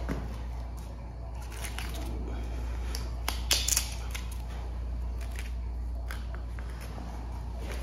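A knife cutting through a large bluefin tuna's loin, making short scraping, crunching strokes, loudest in a cluster about halfway through. A steady low hum runs underneath.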